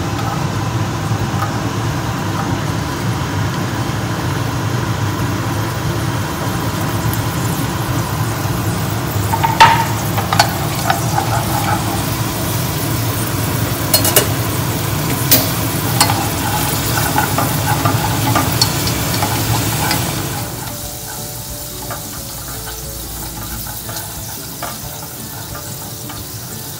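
Sliced shallots sizzling as they fry in hot cooking oil in a pot, with a few sharp knocks of the stirring utensil against the pot. The sizzle turns quieter about twenty seconds in.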